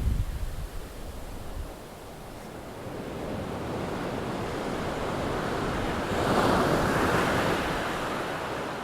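Ocean surf: a wave rushing in and breaking, swelling to its loudest about two-thirds of the way through, then easing. Wind buffets the microphone at the start.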